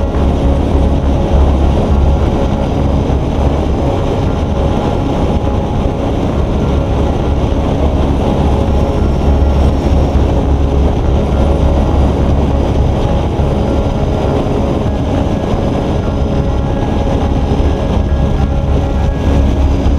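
Motorcycle riding steadily at road speed: constant engine and road noise under a deep rumble of wind buffeting the microphone.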